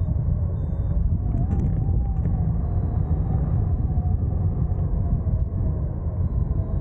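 Wind rushing over the microphone of a camera on a hang glider in flight: a steady, deep rumble of buffeting airflow, with a faint wavering tone running through it.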